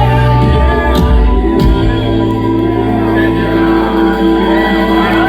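Live band music holding a sustained chord, with a few drum hits in the first two seconds. A singer's wavering, drawn-out vocal rises over the held chord in the second half.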